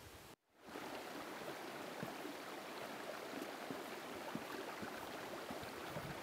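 Steady rush of a mountain stream with a few faint clicks. The sound drops out for a moment near the start, at an edit.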